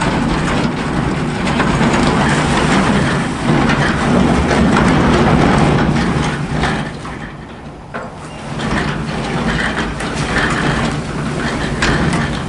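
Wheeled wooden chicken tractor being pulled over the ground: a steady rolling rumble with the frame rattling and clicking. It eases off for a moment a little past halfway, then picks up again.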